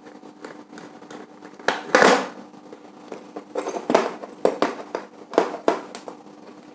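Small clicks and knocks of plastic bulb holders, wire and a screwdriver being handled on a tabletop, with a louder scrape about two seconds in and a quick run of clicks in the second half.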